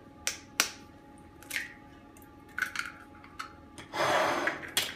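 Eggs being cracked open with a kitchen knife over a stainless steel mug: a series of short, sharp taps of the blade against the shells, with a longer rustling, crackling noise about four seconds in as a shell is pulled apart and the egg goes into the mug.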